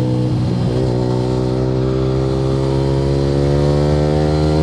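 Yamaha R15 V3's single-cylinder engine through an Akrapovic R9 exhaust, under way. The note breaks briefly about half a second in, as at a gear change, then climbs steadily in pitch as the bike accelerates.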